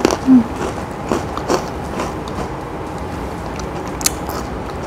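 Crunching bites and chewing of crisp, deep-fried rice-flour thattai crackers: a few sharp crunches spaced about a second apart.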